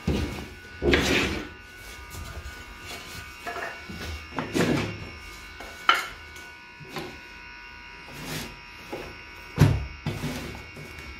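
Wooden stretcher-bar pieces knocking and clattering as they are picked up and handled, a handful of separate knocks with the sharpest near the end, over a steady electrical buzz.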